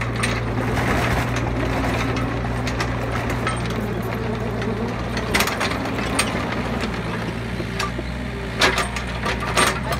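Mini excavator's diesel engine running steadily as the machine tracks forward over rough ground, with a few sharp metallic clanks, two of them near the end.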